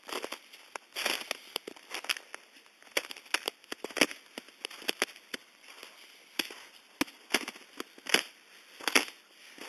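Footsteps crunching through ice-crusted snow: a sharp crackling crunch about once a second, with smaller crackles in between.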